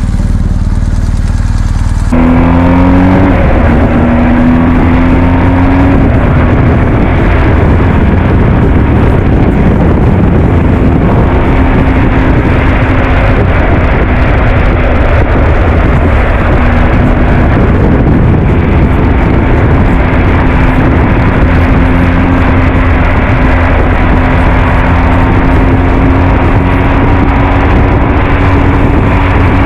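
BMW R 1250 GS Adventure's boxer twin idling. About two seconds in it switches to riding, with the engine note climbing through a couple of gearchanges and then holding steady at cruising speed under heavy wind and road noise.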